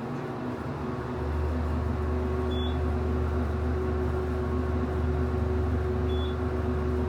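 Traction elevator car, originally Westinghouse and since modernized, starting off and travelling upward, heard from inside the cab. It is a steady low hum that swells about a second in as the car gets under way, then holds steady, with a fainter steady drone above it.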